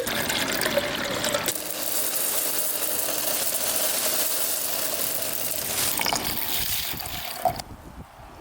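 Liquid pouring in a steady stream, stopping about seven and a half seconds in.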